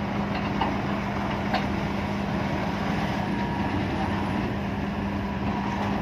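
Combine harvester's diesel engine running steadily, a low even drone with a strong steady hum.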